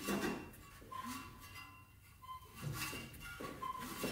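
A Ford 302 V8 with its spark plugs out is turned over by hand at the fan. A quiet swish repeats roughly once a second, with brief high squeaks between. The engine turns freely, with little to no resistance.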